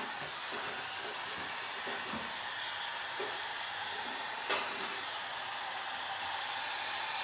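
Temperature-controlled heat gun blowing steadily, set to about 145 to soften the screen adhesive. A single short click about four and a half seconds in.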